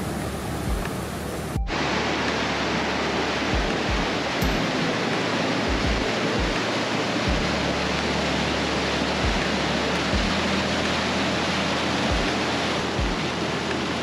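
Mountain stream rushing over rocks and small cascades, a steady loud rush of white water. About two seconds in it jumps to a louder, closer rush of rapids.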